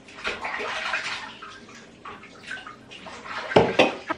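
A rush of running water for about a second, fading out, then two loud knocks near the end.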